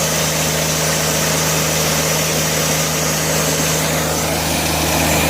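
Engine of a portable bandsaw sawmill running steadily, with a constant hum and hiss.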